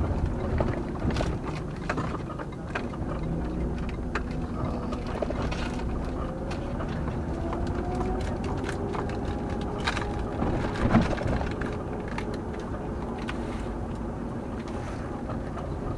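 A car driving slowly on a town road: steady engine and road noise, with the engine pitch slowly rising and falling and a few light clicks and rattles. There is one louder knock about eleven seconds in.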